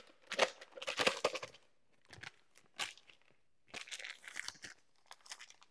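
Foil wrapper of a block of cream cheese crinkling in several short bursts as it is peeled open.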